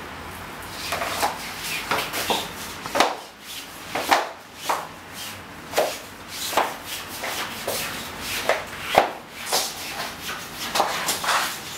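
Hands rubbing freshly pasted wallpaper flat against a wall. The strokes come irregularly, a little more than one a second.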